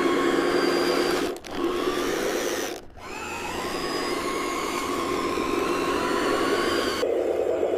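Electric motors and gearboxes of a radio-controlled construction model whining as the machine works, the pitch gliding a little, with two brief breaks about a second and a half and three seconds in. Near the end a lower engine-like hum comes back.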